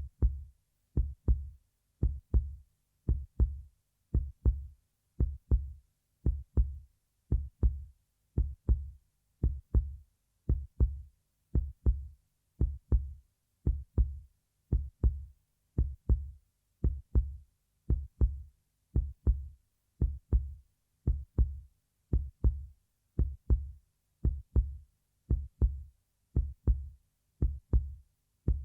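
Heartbeat sound effect: a steady lub-dub, each beat a pair of deep thumps close together, repeating about once a second with silence between beats.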